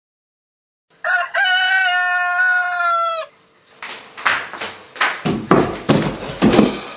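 A rooster crows once, a single drawn-out call of about two seconds with a slight fall in pitch. It is followed by a run of uneven scuffles and thumps.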